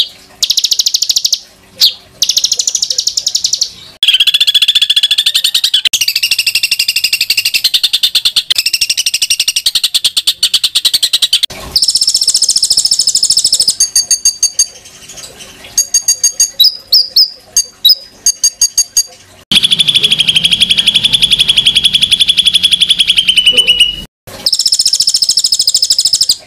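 Songbird song made of harsh, fast rattling trills, each held for a few seconds, with quick bursts of sharp high chips between them: the rough 'tembakan' phrases used as master recordings for training competition songbirds.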